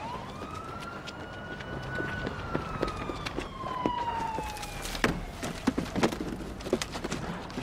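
A siren wailing: one slow rise, then a long fall that fades about five seconds in. Running footsteps and the thumps of a scuffle sound over it, heaviest around five to six seconds in.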